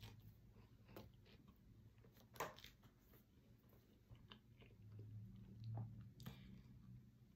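Faint chewing of a mouthful of cheeseburger: soft, scattered mouth clicks and smacks, one a little louder about two and a half seconds in.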